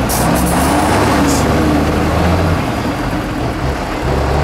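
Tatra 8x8 trial truck's diesel engine running as it crawls forward, its note rising and falling slightly with the throttle.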